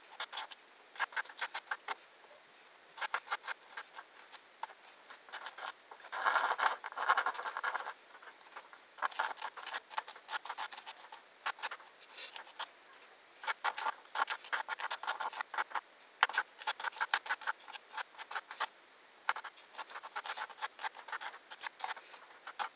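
Kitchen knife slicing spring onions into thin rounds on a cutting board: quick runs of crisp blade strokes that knock on the board, broken by short pauses, with a denser, louder run about six to eight seconds in.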